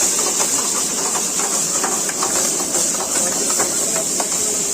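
Steady cooking hiss at a street-food stove, with scattered clinks and scrapes of metal utensils.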